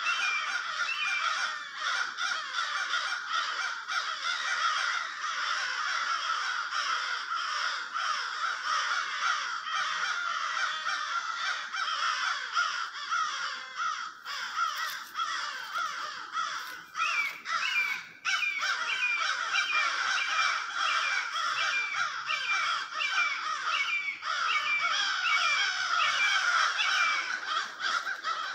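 A large flock of crows cawing continuously in an overlapping din, mobbing a red-shouldered hawk. A run of quick, repeated higher calls rises over the chorus in the second half.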